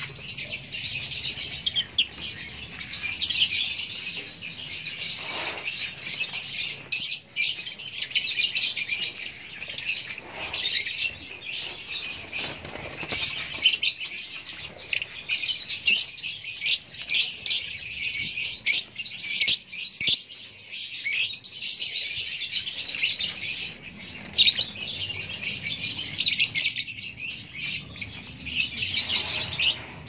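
A crowd of caged lovebirds chattering all at once: a dense, continuous, high-pitched chirping with no pause.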